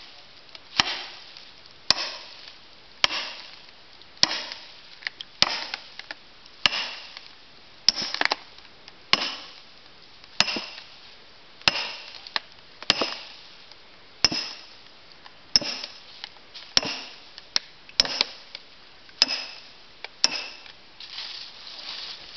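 A hammer striking steel splitting wedges driven into a red spruce round: sharp metallic clinks at a steady pace of a little under one a second, each with a short ring.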